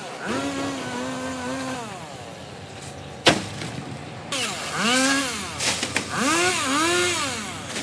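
Two-stroke chainsaw engine revved in several throttle bursts, its pitch holding high, then dropping and swelling up and down again. A single sharp knock a little over three seconds in.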